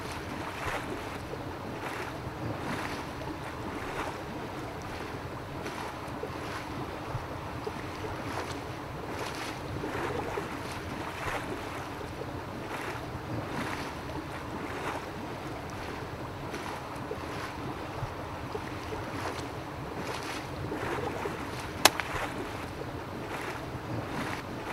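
Fishery water pumps running with a steady churning noise and a faint regular pulse. A single sharp click sounds near the end.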